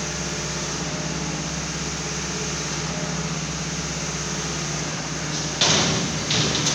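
Concrete pump running steadily with an even, fast-pulsing drone. About five and a half seconds in, a loud sudden rush of noise, followed by a shorter one just before the end.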